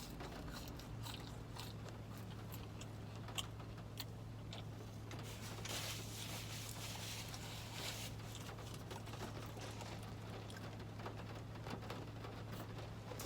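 Close-up chewing and biting while eating a grilled chicken sandwich and fries, with scattered small clicks over a steady low hum.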